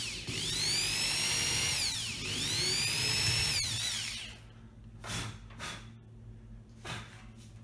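Corded electric drill (ДУ-13/650ЭР) boring a 3 mm pilot hole for a fixing screw through the oven's mounting frame into the cabinet side. The motor whine rises as it spins up, eases off briefly about two seconds in, runs again, then winds down after about three and a half seconds. A few light knocks follow.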